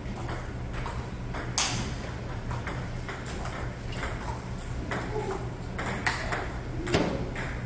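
Table tennis rally: the celluloid ball clicks sharply off the paddles and bounces off the table, again and again at an uneven pace. The loudest hit comes about one and a half seconds in.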